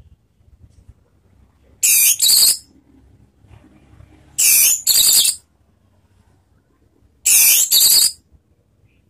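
Orange-headed thrush singing loud, clear whistled phrases: three bouts, each of two phrases in quick succession, about two and a half seconds apart.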